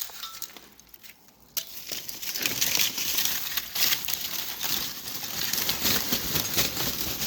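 Dense crackling and rushing noise of a horizontal wood-charcoal carbonization furnace burning at work, coming in suddenly about a second and a half in.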